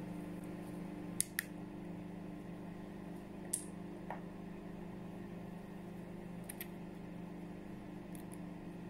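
Microwave oven running with a steady hum while it heats liquid soft-plastic. A few light clicks come from the plastic cap of a small glitter tube being handled.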